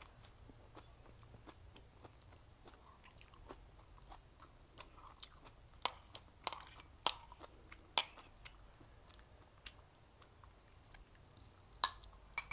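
Soft mouth sounds of chewing, then about six seconds in a series of sharp clinks as wooden chopsticks knock and scrape against porcelain bowls while food is moved from one bowl into another. Near the end comes one loud porcelain clack as a bowl is set down.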